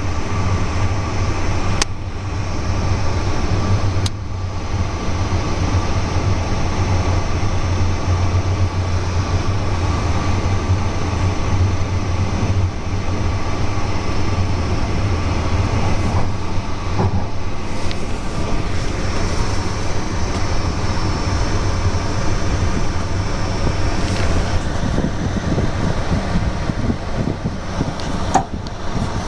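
Passenger train running at speed, heard from inside the carriage: a steady low rumble of wheels on rails, with a few sharp clicks, one of them near the end.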